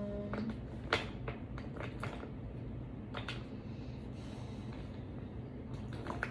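Four light clicks and taps of small craft containers and supplies being handled on a table, spread over several seconds, over a steady low hum.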